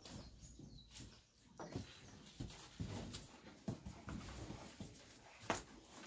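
Dairy cows moving and feeding in a shed: irregular knocks and rustling, with one sharper knock near the end.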